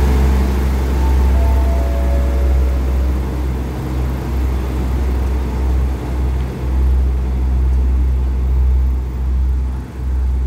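Diesel multiple-unit express train pulling out of the station past the platform and running away down the line, a steady low rumble of engines and wheels on the rails.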